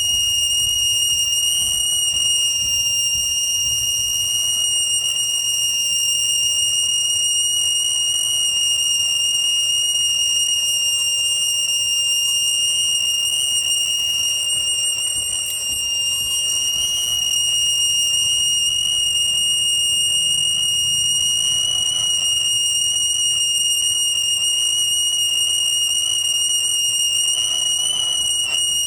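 A loud, steady, high-pitched whistle-like tone holding one pitch throughout, over a faint low rumble.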